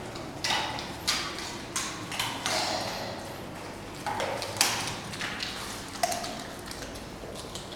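German Shepherd dogs eating from stainless-steel bowls: irregular clicks and clinks of muzzles and teeth against the metal, with a few harder knocks that set a bowl ringing briefly.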